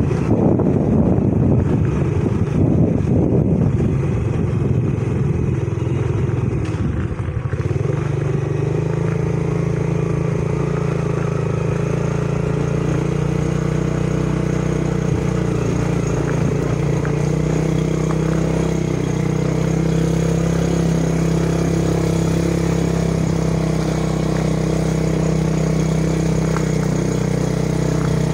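Motorcycle engine running at a steady pace while riding, with wind rumbling on the microphone for the first several seconds; from about eight seconds in the engine hum settles into a steady, even note.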